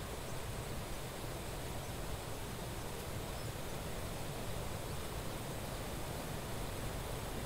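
Steady outdoor riverside ambience: an even hiss with a low rumble underneath and no distinct events.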